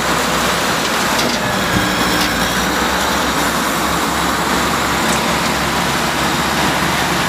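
Dump truck engine running steadily while its raised bed tips out a load of soil, with a loud, even rushing noise over the engine hum.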